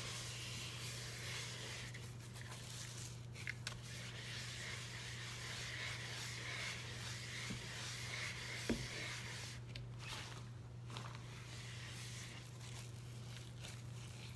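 Scrub sponge working through a wet, gritty paste of dish soap and scouring powder in a wooden bowl: steady squishing and scraping, with a light knock about nine seconds in. A steady low hum runs underneath.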